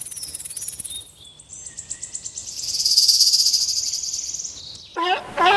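Insects trilling: a high-pitched, fast-pulsing chirr that swells to its loudest about three seconds in, with a few short bird chirps over it. About five seconds in it cuts to a different animal's loud, repeated calls that sweep in pitch.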